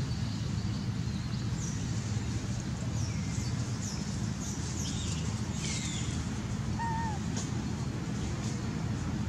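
Short, high chirping calls: a string of them from about one and a half to six seconds in, then two brief arched calls around seven seconds. A steady low rumble runs underneath.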